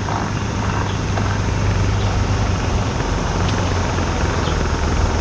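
A fishing boat's engine running steadily with a low, even hum while it is checked for an unusual noise.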